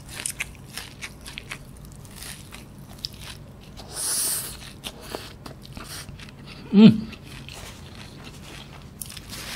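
Close-miked chewing of cheese kunafa, shredded pastry filled with stretchy mozzarella: many small wet mouth clicks and smacks. There is a short breathy suck about four seconds in and a brief falling hum near seven seconds.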